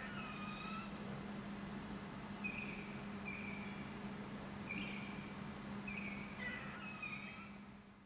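Faint outdoor ambience: a steady high-pitched insect drone with short chirps scattered through it over a low hum, fading out at the end.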